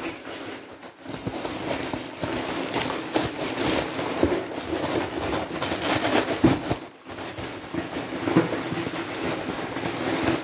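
Hands digging and rummaging through loose polystyrene packing chips in a cardboard box: a dense, continuous rustling, squeaking crackle of foam pieces rubbing together, with a brief lull about seven seconds in.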